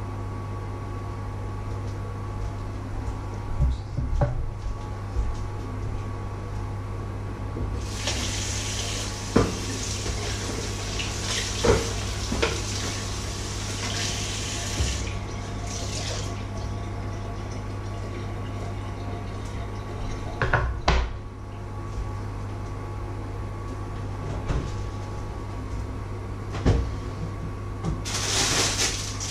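Kitchen tap running into a sink for about seven seconds, with a few sharp knocks as dishes and a board are handled, and a short burst of running water again near the end. A steady low hum sits under it all.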